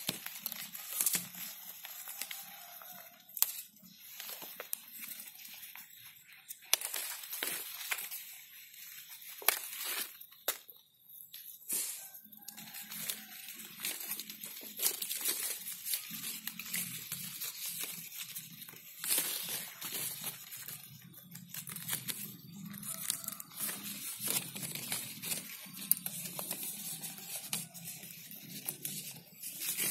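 Water apple leaves and twigs rustling and crackling irregularly as they are handled and brushed close against the microphone.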